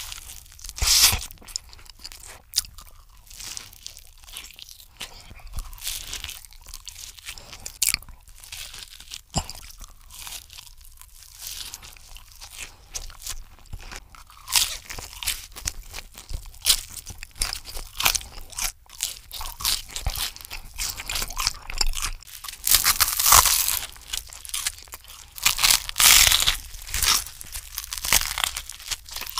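Crunching and chewing as a chicken parmesan sandwich on toasted bread and french fries are bitten into and eaten: a string of irregular crunchy bites and chews, loudest about a second in and in clusters near the end.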